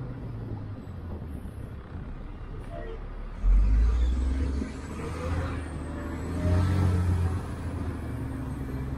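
City bus running, heard from inside the cabin: a steady low engine hum with road noise, and a sudden deep rumble about three and a half seconds in, then a second swell a few seconds later.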